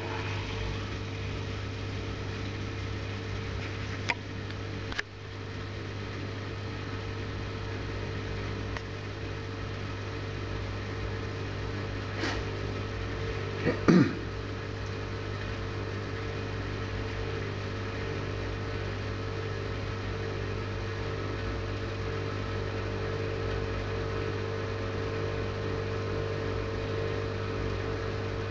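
Hyundai DW 6012BG dishwasher's pump motor running with a steady hum, with a few clicks and knocks along the way, the loudest about halfway through. It stops with a click near the end.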